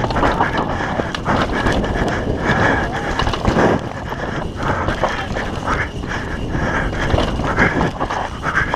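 Downhill mountain bike rattling and clattering as it descends a rough, loose dirt track: tyres crunching and skidding on dirt, with frequent sharp knocks and rattles from the chain and frame over bumps and holes.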